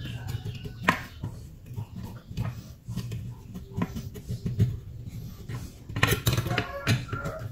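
Light metallic clicks and taps of an aluminium heatsink and its amplifier board being handled and fitted together, with a louder animal call about six seconds in.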